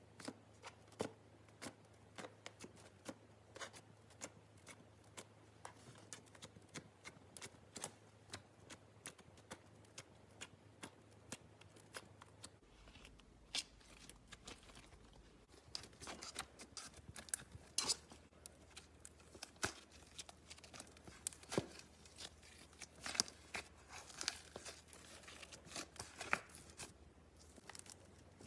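Slime being pressed and worked by hand: a string of small clicks and crackles, sparse at first and growing denser and louder about halfway through.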